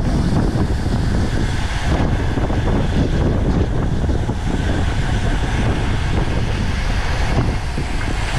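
Wind rushing over a bike-mounted camera's microphone at race speed: a loud, steady buffeting rush.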